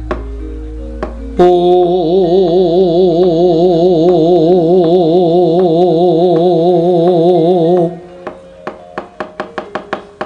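Javanese gamelan music in a wayang kulit performance. It opens with a few short metallophone notes, then a long, loud held note that wavers in pitch for about six seconds and stops abruptly. Near the end comes a quick run of wooden knocks that speed up, the dalang's cempala rapping on the puppet chest.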